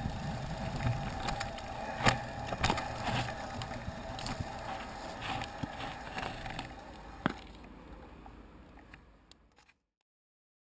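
Mountain bike rattling over a rough dirt trail on a descent, with sharp knocks as it hits bumps. The sound fades from about two thirds of the way in and stops abruptly near the end.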